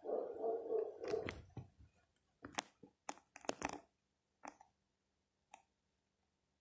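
Sound effects of an animated like-and-subscribe end card: a quick run of sharp clicks and pops, about six of them between two and five and a half seconds in. Before them there is a faint muffled sound for the first second or two.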